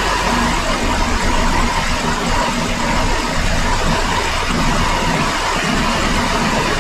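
Chrysler minivan's V6 engine idling steadily, now running right after a reconditioned engine computer cured its faulty injector 1 and 3 circuits.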